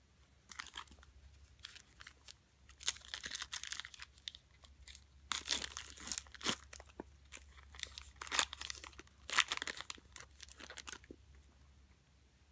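A Topps Chrome trading card pack's wrapper being torn open and crinkled by hand, in a series of bursts.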